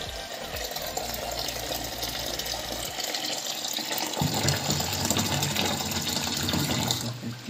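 Water running from a kitchen tap and splashing into a plastic mug and steel sink, a steady gush that stops near the end.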